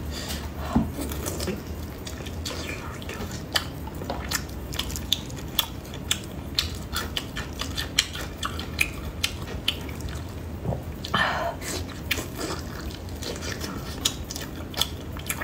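Close-up chewing and wet mouth sounds while eating soft, sticky glazed pork intestine rolls stuffed with pig brain: many quick squelching clicks and lip smacks, with a short breathy rush about eleven seconds in.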